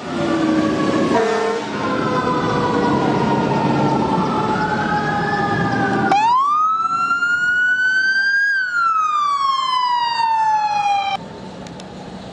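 Emergency vehicle sirens wailing as parade vehicles pass, several overlapping, with a short lower horn blast about a second in. About halfway through, one siren rises in a single long wail and then falls back, and it cuts off suddenly near the end, leaving quieter traffic noise.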